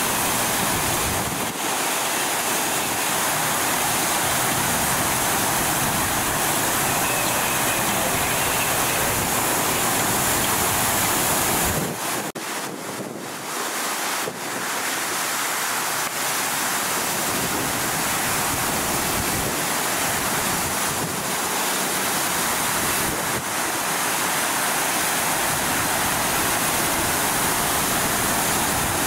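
Water gushing at high pressure from a sheared fire hydrant: a steady, loud rushing that dips briefly about twelve seconds in.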